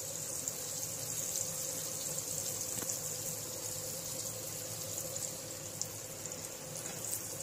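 Melted butter sizzling steadily in a hot nonstick pan, over a steady low hum.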